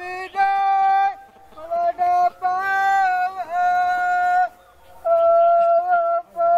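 A single voice singing a traditional Sri Lankan threshing chant (kamath kavi) in long, drawn-out notes, several phrases with short breaks between them, the chant sung to keep water buffaloes treading paddy on the threshing floor.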